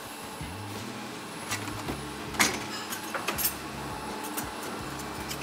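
A few sharp clicks and knocks of kitchen utensils being handled, the loudest about two and a half seconds in.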